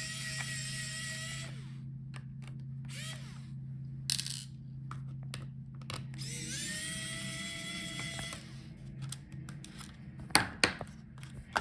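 Small electric screwdriver whirring in two runs of about two seconds each, the pitch rising briefly as it spins up and then holding steady, working on the laptop's screws. A few sharp clicks near the end.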